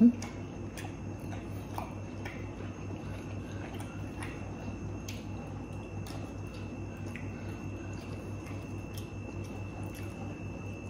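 Steady low electrical hum with a faint high whine, under scattered soft clicks and small wet squishes of fingers pulling apart and handling food. One short knock sounds right at the start.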